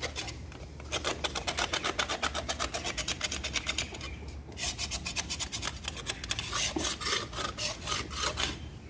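Hand sanding of a wall's decorative lattice: quick back-and-forth scraping strokes, about five a second, with a short break a little after halfway.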